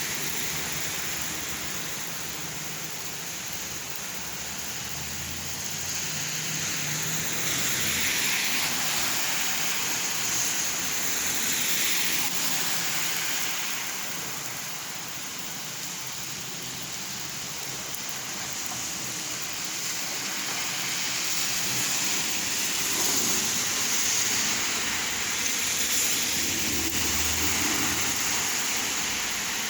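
Steady rain falling and splashing, a constant hiss that slowly swells and eases a few times.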